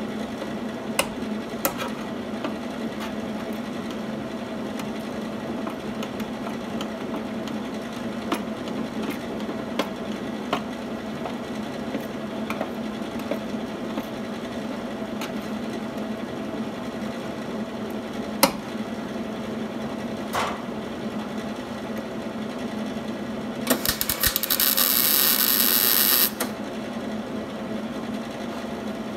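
Near the end, a MIG welder's arc crackles steadily for about two and a half seconds as a short weld is laid on the car's sheet-metal inner structure. Before it there is a steady low hum with scattered metal clicks of tools and clamps being handled.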